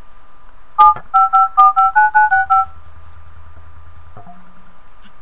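Touch-tone (DTMF) keypad beeps from the Geeksphone Keon's Firefox OS dialer, played through the phone's speaker as number keys are tapped: about ten short two-tone beeps in quick succession, starting about a second in.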